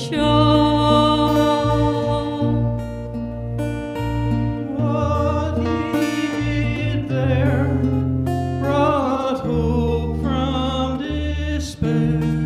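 Gospel song performed live: a man's singing voice with a strummed acoustic guitar, over held low bass notes.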